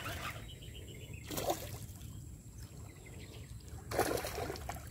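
Hooked fish splashing at the river surface while being reeled in: a short splash about a second in and a louder one about four seconds in.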